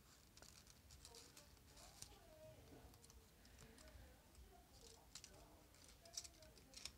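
Faint rustling and crinkling of folded colour-paper origami units as they are handled and slotted into one another, with a few soft paper crackles about a second in, at two seconds, and several more near the end.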